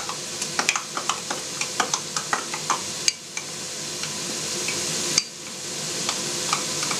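Metal spoon clinking quickly against a glass as flour is stirred into water, over the steady sizzle of carrot, onion and tomato sauce frying in a pan. The clinking stops about three seconds in, leaving only the sizzle, and picks up again near the end.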